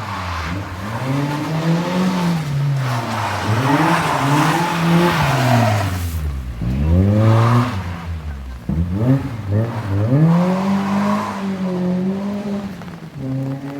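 Car engine revved hard again and again, its pitch climbing and dropping every two to three seconds as the driver accelerates and lifts off, with tyre squeal as the car drifts.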